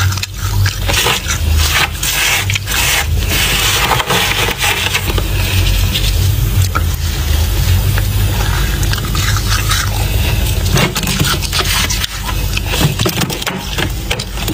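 Continuous crackly scraping of frost, over a steady low hum.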